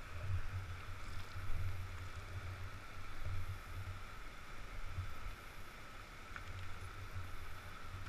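Kawasaki KLR650's single-cylinder engine idling, heard muffled as a low, uneven rumble, over a steady rush of creek water.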